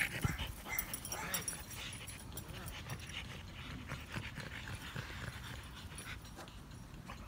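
French bulldog panting, loudest in the first half-second, with a few short clicks.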